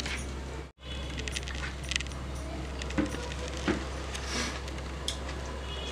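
Light, scattered clinks of bangles and small clicks of fingers on a plastic plate as someone eats rice by hand, over a steady low hum. The sound cuts out briefly under a second in.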